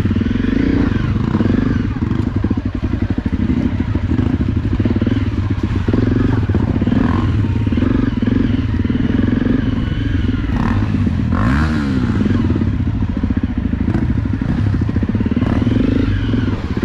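Honda CRF250L/Rally trail bike's 250 cc single-cylinder four-stroke engine running at low revs as the bike is ridden slowly off-road. Its pitch dips and rises briefly past the middle, with a few knocks.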